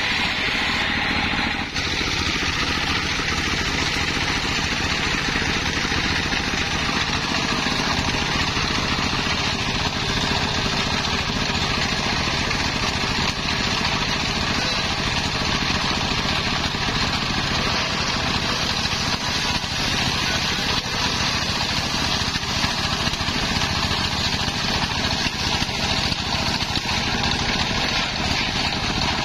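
Homemade table circular saw, belt-driven by a stationary diesel engine, running steadily while its blade cuts lengthwise through waru (sea hibiscus) logs and slabs. The engine's steady running sits under the continuous hiss of the blade in the wood.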